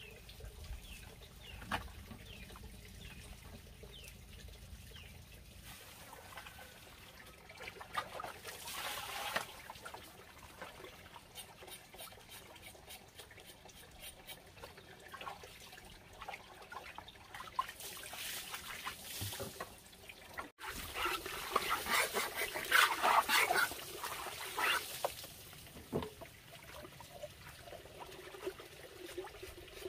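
Water trickling from a bamboo pipe into a basin and splashing as meat is washed by hand, with a louder stretch of splashing and handling about two-thirds of the way through.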